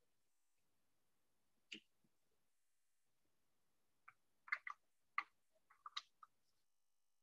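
Near silence broken by a few faint, short clicks: one about two seconds in, then a quick cluster of them about four to six seconds in.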